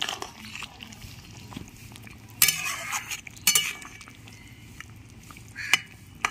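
Flat metal spatula scraping and clinking against a metal kadai while stirring fish pieces into a boiling curry, with a few sharp scrapes about two and a half, three and a half, and near six seconds in, over the soft sound of the simmering gravy.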